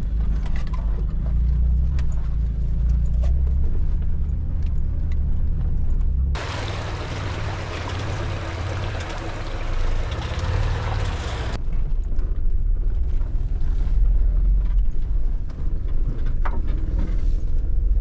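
Mitsubishi Pajero 4x4 rumbling low as it crawls over a rough, overgrown bush track, heard from inside the cabin, with light knocks and rattles. For about five seconds in the middle it gives way to a steady rushing hiss heard outside beside the wheel as the vehicle pushes through tall grass.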